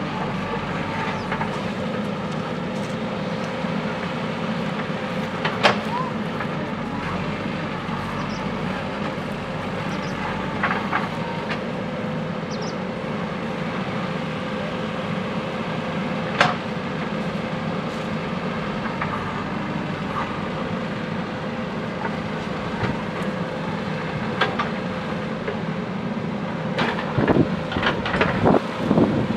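JCB backhoe loader's diesel engine running steadily with a constant hum. A few sharp knocks stand out, one about six seconds in and one about sixteen seconds in, and a cluster of clanks comes near the end.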